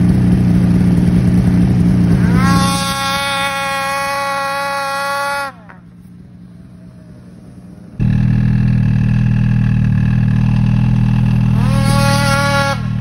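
Snowmobile engine revving hard as the sled is ridden through deep snow. A high engine whine rises a couple of seconds in and falls away, and the sound drops to a quieter stretch. It comes back loud and the engine revs up and down again near the end.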